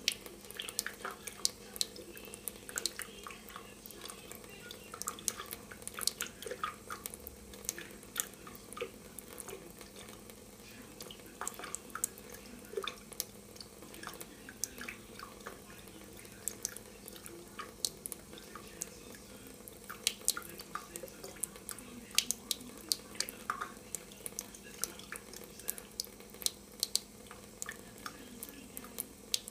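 A thin trickle of water from a kitchen faucet falling into a stainless steel sink, heard as irregular drips and small splashes, over a faint steady hum.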